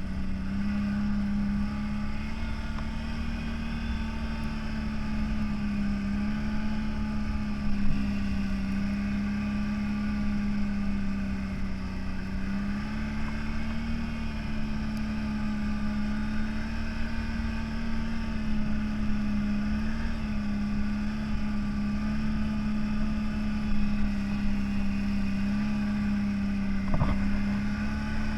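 CFMoto 1000 off-road vehicle's engine running at a steady, moderate speed under way, its note dipping and rising slightly, over a low rumble. A short knock near the end.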